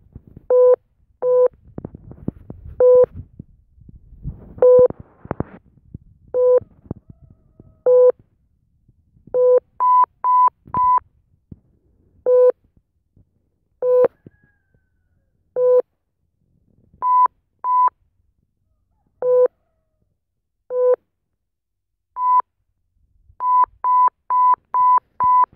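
Phone satellite-finder app (Satellite Director) beeping through the phone's speaker in short electronic tones. It switches between lower beeps and beeps an octave higher, the higher ones coming in quick runs, with five in a row near the end, as the phone is pointed closer to the satellite's direction.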